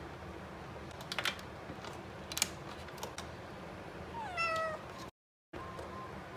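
A domestic cat meows once, about four seconds in: a single meow that falls in pitch. Before it come a few sharp clicks, about one second and two and a half seconds in.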